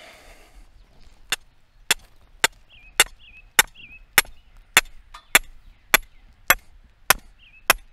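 A short-handled hammer driving a stake into the ground: about a dozen sharp, evenly spaced strikes, a little under two a second, starting about a second in.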